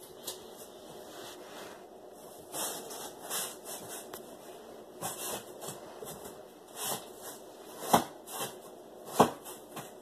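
Irregular rubbing and rustling noises, with two sharp knocks near the end.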